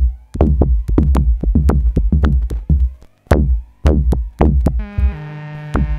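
Live electronic music: a drum machine plays a fast, uneven pattern of sharp electronic hits. About five seconds in, a held synthesizer chord comes in under the beat.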